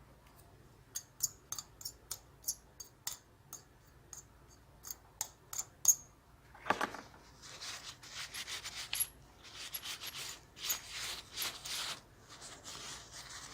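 Hand work on a small laptop cooling fan and its parts: a run of sharp, light clicks roughly two a second, then from about seven seconds in an uneven rubbing and scraping.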